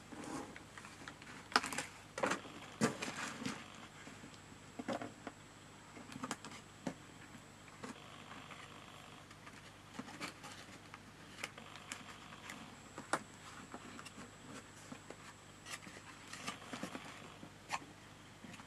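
Cardstock being handled as a paper card box is folded and pressed together: scattered light taps, rustles and crinkles, busiest a couple of seconds in and again near the end.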